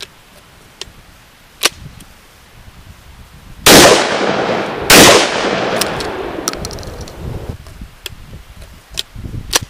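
Two shots from a Stoeger Uplander side-by-side 12-gauge shotgun cut down to 11-inch barrels, fired about a second apart near the middle, each loud blast trailing off in a long echo. Before and after them, a few sharp metallic clicks of the action being handled as the gun is loaded and then broken open.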